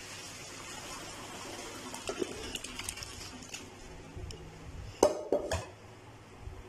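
Boiled long-grain rice and its hot cooking water poured from a pot into a stainless steel colander, the water splashing and draining through with a few light metal ticks. About five seconds in come two loud metal clanks as the pot knocks against the colander.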